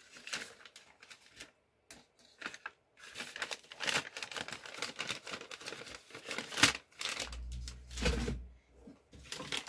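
Paper wrapping rustling and crinkling as a boxed utensil is handled and unwrapped, in irregular bursts with small clicks. A brief low bump comes near the end.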